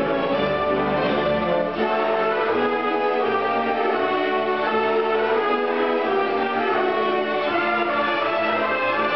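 Youth symphony orchestra playing, bowed strings to the fore, with the deep bass dropping out about two seconds in.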